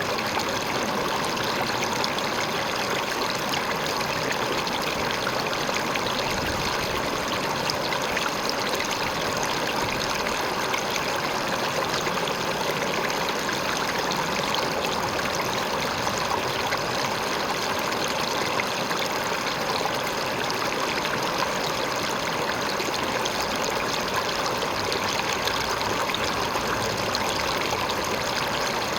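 River water flowing and splashing over a rock, a steady rushing and babbling.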